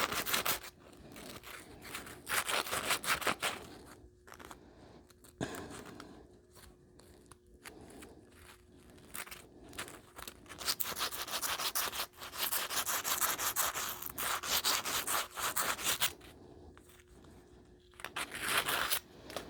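Emery cloth rubbed briskly back and forth on a copper pipe, scouring the metal clean and bright before fluxing and soldering. The rubbing comes in several spells of quick strokes, the longest in the middle, with short pauses between them.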